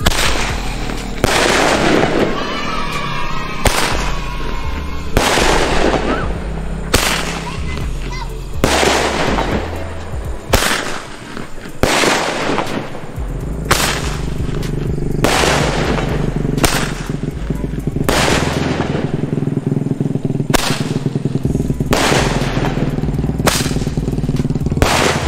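Roman candle firing shot after shot, a sharp pop about every second and a half, around fifteen in all. Background music plays underneath.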